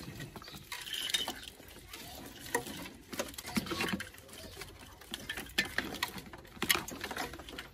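Hands handling and pulling bundled wiring behind a car's front end, giving irregular rustling and small clicks of wire and plastic parts.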